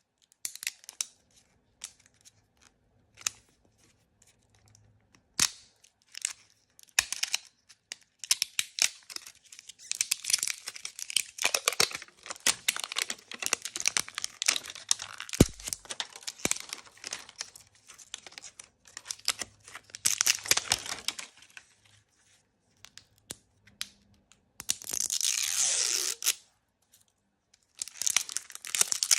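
Plastic blind-bag packaging being opened by hand. Scattered small clicks and rustles at first, then a long stretch of crinkling and tearing of the wrapper. A steadier tear comes a little before the end, and the crinkling picks up again at the close.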